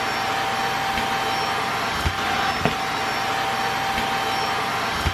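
Aposen H250 cordless stick vacuum running steadily with its roller brush removed: a constant motor whine over a rush of airflow, with a few short clicks.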